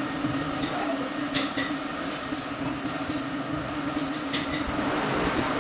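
Workshop air compressor running with a steady hum, broken by several short hisses of air.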